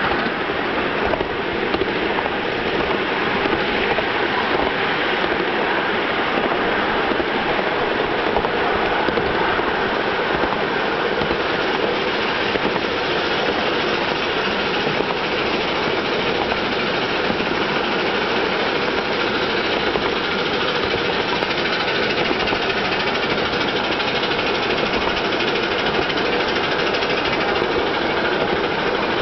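Steady running noise of a ride-on miniature steam train, a Britannia locomotive, as its wheels roll along the track at an even pace.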